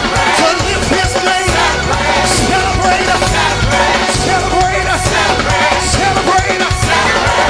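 Live gospel praise music: a full band with drums, and singers' voices over it.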